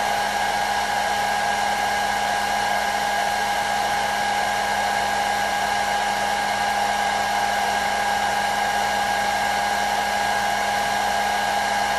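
Hair dryer running steadily: a constant rush of blown air with a steady high whine from its motor.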